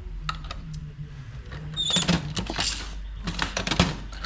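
MEC Grabber progressive shotshell reloading press being cycled: clicks, then two clusters of sharp metallic clacks about two seconds and three and a half seconds in as the handle is stroked and the shell plate moves, with a brief squeak just before the first cluster.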